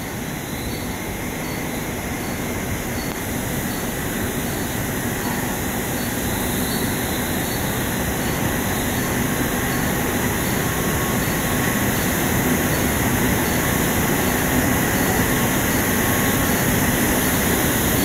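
Steady machinery noise of a silicone cable production line running, the even rush and hum of the extrusion and curing line and its extraction fans, with a few faint steady tones. It grows slowly louder throughout.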